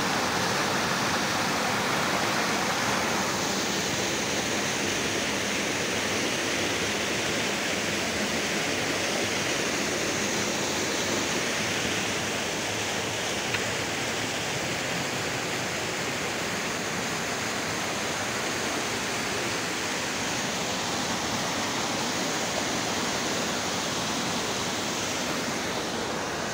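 Mountain stream pouring over a small waterfall into a rock pool: a steady rush of water, a little louder for the first few seconds.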